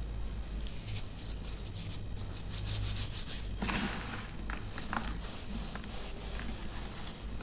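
Broken chunks of pressed baking soda crunching and crumbling as they are squeezed, with scattered crackles and a louder crunch about three and a half seconds in, over a steady low hum.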